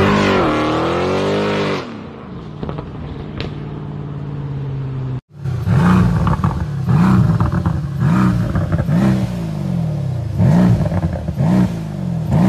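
Mercedes-AMG C63 V8 exhaust: one rev rises and falls, then the engine settles back to idle. After a cut, a C63 S coupe's 4.0-litre twin-turbo V8 is blipped over and over, about one rev a second, with sharp crackles among the revs.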